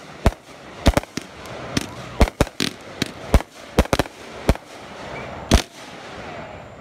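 Fireworks going off: a rapid, irregular string of sharp bangs, some in quick pairs, with crackling between them. The last and loudest bang comes about two thirds of the way in.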